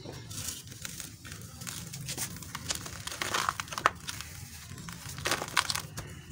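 Gritty red dirt and sand crunching and crumbling as hands scoop and squeeze it into a clump, in a run of short, irregular gritty crunches, the sharpest near the middle.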